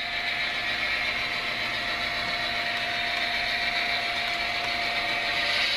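HO-scale model train running past: a steady rolling and engine-like hum from the moving train, with a thin steady whine that stops just before the end.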